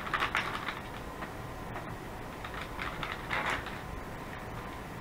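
Crinkling and crackling of the plastic bag of an MRE flameless ration heater as it is handled and filled with water from a canteen. The crackle is strongest in the first second, with another short burst about three seconds in.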